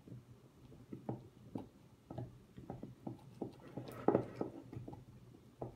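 Silicone spatula stirring thick sourdough starter in a glass jar: irregular soft knocks and scrapes against the glass, about two a second, the loudest about four seconds in.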